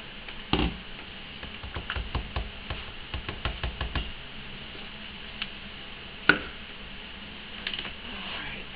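Metal stick-blender shaft knocking and tapping against a plastic tub as emulsified cold process soap batter is stirred by hand: a quick irregular run of knocks for a few seconds, then a couple of single clicks, the sharpest one a little after the middle.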